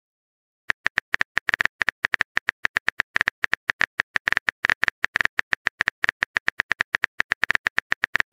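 Rapid on-screen phone keyboard tap clicks: a quick, uneven run of short sharp ticks, several a second, as a text message is typed. They begin about a second in.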